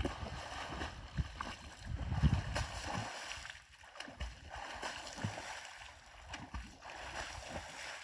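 Splashing of a swimmer's arm strokes in open water, a soft irregular churning with scattered small splashes.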